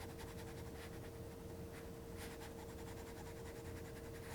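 Faint scratching of a stylus tip stroking across a tablet screen while shading, a few soft strokes over a low steady hum.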